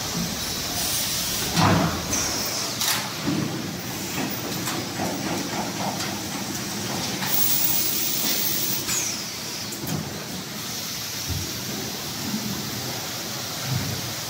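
Roll seaming and assembly line for dishwasher tubs running: a steady machinery hum with metal clanks and short bursts of compressed-air hiss from the pneumatics. The loudest clank comes just under two seconds in.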